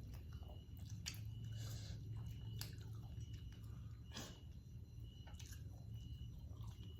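A person chewing food at close range, with scattered short sharp mouth clicks, over a steady low hum.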